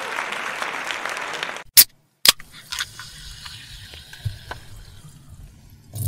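Indoor swimming pool ambience, a dense wash of splashing and crowd noise, cut off suddenly a little under two seconds in. Two sharp clicks follow, then a much quieter stretch with a low rumble and a few faint ticks.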